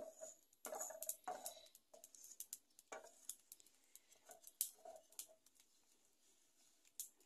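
Wooden spoon stirring cloves and black peppercorns toasting dry in a small enamel frying pan: light, irregular scraping and ticking.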